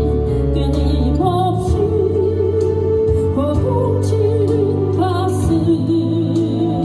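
Christian worship music: a singer's wavering melody over sustained accompaniment, with light percussion strokes.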